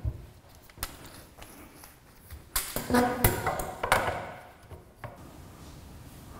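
Metal tripod stand being unfolded and set on a tiled floor: knocks and clicks, then a burst of metal clatter and clanking with a brief ringing about three to four seconds in, dying away.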